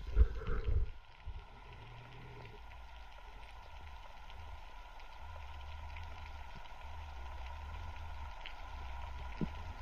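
Underwater sound picked up through a camera's waterproof housing: a steady low rumble of water movement with a faint constant hum, and a couple of dull knocks in the first second.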